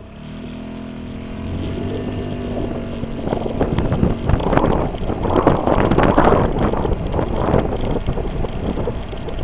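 A 2003 Honda Metropolitan scooter's small 49cc four-stroke engine running on the road, a steady even note at first that grows louder and rougher from about three seconds in. It runs much better after a tune-up with a new spark plug, but still has a slight miss.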